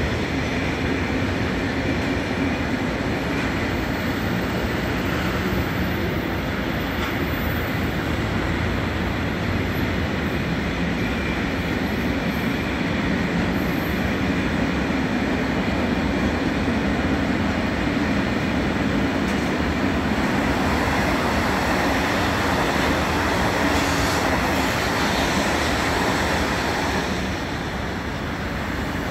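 Freight train wagons rolling past at steady speed: a continuous rumble of steel wheels on rail, easing slightly near the end.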